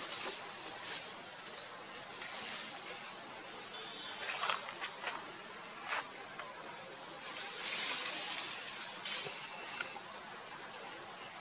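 Steady high-pitched chorus of insects buzzing without a break, with a few short clicks or rustles scattered through it.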